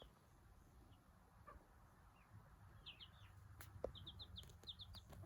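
Faint high peeping of a young chick: a few short peeps about three seconds in, then a quick run of about ten more near the end.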